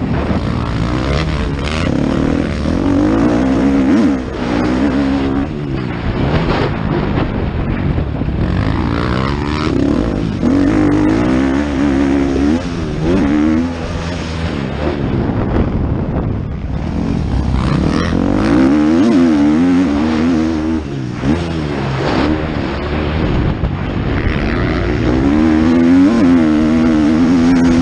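Motocross bike engine at race throttle, revving up and down again and again as the rider accelerates, shifts and backs off. The engine sound drops briefly about sixteen seconds in, then picks up again.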